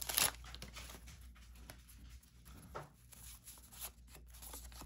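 A short crinkle of a wax-pack wrapper right at the start, then faint rustles and light clicks of 1991 Fleer trading cards being handled and flipped through one by one.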